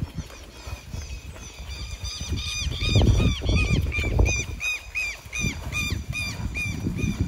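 Filly trotting on soft sand, her hooves making dull, uneven thumps. From about two seconds in, a high squeaky chirp repeats about three times a second.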